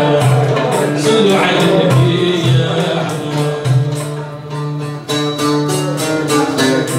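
A live ensemble of banjos and other plucked lutes plays a melody over frame drum and darbuka.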